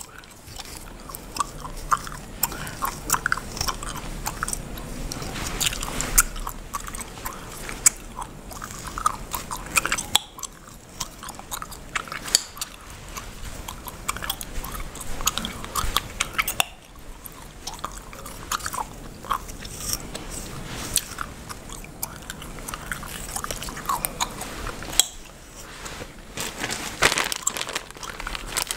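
Close-miked bubblegum chewing with irregular sharp cracks and pops, several a second, mixed with the scratchy rasp of a comb's tail working through oiled scalp and hair.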